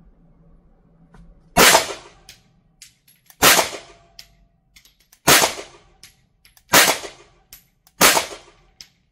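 Five single shots from a Canik TTI Combat 9mm Luger pistol with a compensator, fired slowly one at a time about one and a half to two seconds apart. Each shot trails a short ringing echo off the walls of the indoor range.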